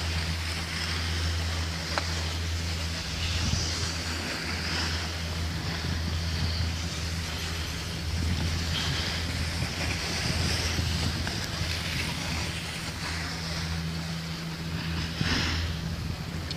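Outdoor wind noise rushing on the microphone over a steady low machine hum.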